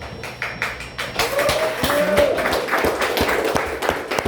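Small audience clapping at the end of a guitar piece, the applause thickening about a second in, with a brief cheer from one voice.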